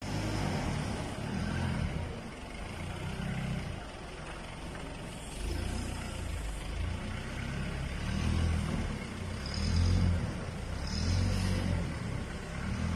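Diesel forklift engine running, its revs rising and falling every second or two as the forklift drives and manoeuvres.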